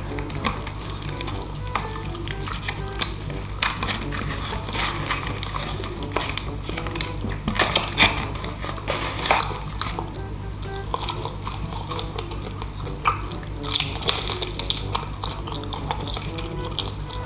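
Crispy breading of fried chicken crackling in irregular sharp bursts as fingers tear and pick at the pieces, then crunching as a piece is bitten near the end. Soft background music runs underneath.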